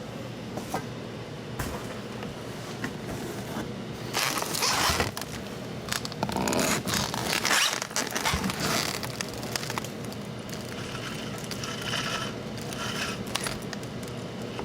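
Scraping and rustling of parts and packing being handled and unpacked from a box, with a few clicks; the loudest stretches come about four seconds in and again from six to nine seconds.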